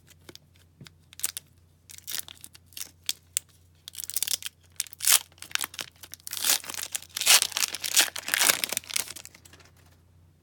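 A hockey card pack's wrapper being torn open and crinkled by hand. A few light clicks come first, then a long stretch of tearing and crackling that is loudest in the second half and stops shortly before the end.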